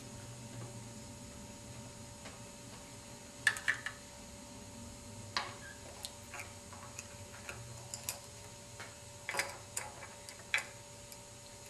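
Light plastic clicks and taps of Lego pieces as a small toy trash cart is handled and set onto a Lego garbage truck model's cart tipper. The clicks come irregularly, singly and in small clusters, with the sharpest bunches about three and a half seconds in and near the end.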